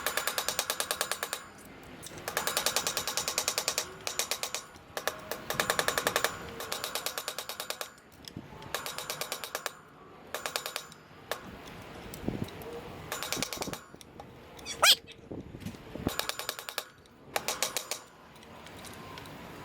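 Rapid clicking in short bursts, each about a second long and coming over and over with brief pauses between.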